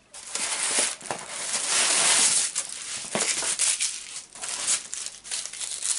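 Paper wrapping being crinkled and torn open by hand, a dense crackling rustle, loudest about two seconds in, then going on in smaller rustles.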